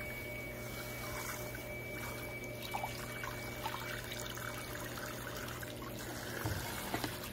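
Water from a salon shampoo-bowl sprayer running steadily over hair and into the basin, with a few small splashes and knocks from the hands at work.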